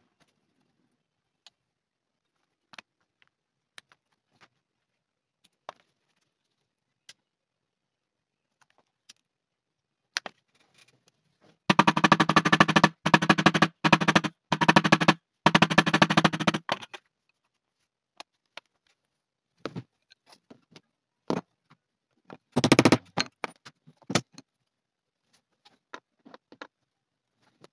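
Rapid sharp metallic tapping in three quick runs over about five seconds, made by a small metal leather tool worked on a leather wallet against a stone slab. A short cluster of strikes follows about 23 seconds in, with scattered single clicks around them.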